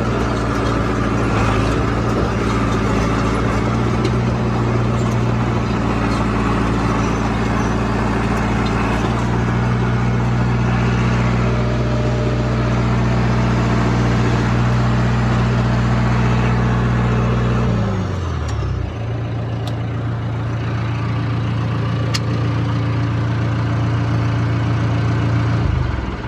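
Diesel engine of a John Deere 455E crawler loader running steadily. About eighteen seconds in, the engine speed drops and it settles to a lower, steady idle. It cuts off just before the end.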